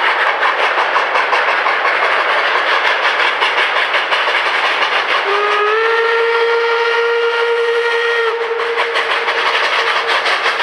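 Two narrow-gauge steam locomotives, a K-27 and a K-36 Mikado, working hard with rapid, even exhaust chuffs. A steam whistle sounds one long blast from about five seconds in, lasting about three seconds and fading out after.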